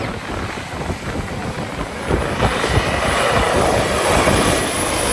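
Aircraft engine noise growing steadily louder from about two seconds in as a plane approaches, with a faint high steady whine near the end.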